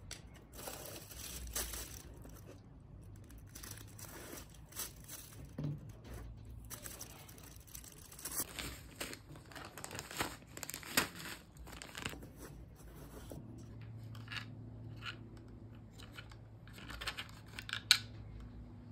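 Small plastic parts bags crinkling and rustling as they are handled, with light clicks and taps of plastic and metal model-kit parts, and one sharper tap near the end.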